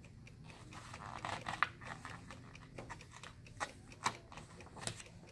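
Pages of a small paperback book being turned and handled: a crackly paper rustle about a second in, then a few short, crisp clicks.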